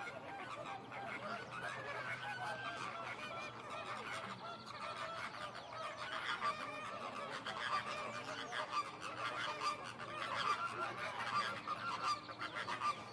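A large flock of birds honking, with many short nasal calls overlapping in a dense, continuous chorus that grows busier toward the end.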